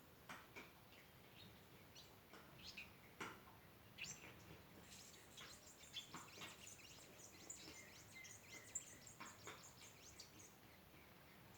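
Faint chirping and calling of several small birds, short high notes one after another, with a denser run of twittering through the middle.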